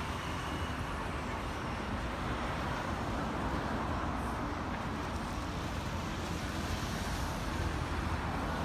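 Steady road traffic noise from cars, vans and trucks driving along a busy city street.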